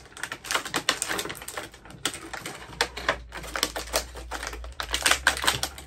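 Clear plastic action-figure packaging tray being handled and pried open, giving a rapid, irregular run of plastic clicks and crackles.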